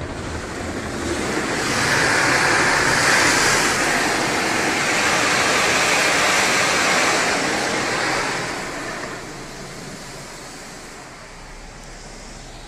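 Water jets of an automatic car wash spraying over the car, a rushing hiss that swells about a second and a half in, holds steady, and fades after about eight seconds.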